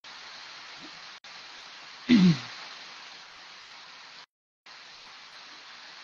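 Steady hiss, broken by one short, loud vocal sound about two seconds in, falling in pitch. The hiss drops out for a moment a little after four seconds in.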